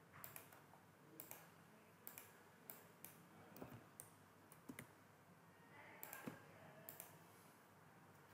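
Faint, irregular clicks of a computer mouse and keyboard, about a dozen spread unevenly.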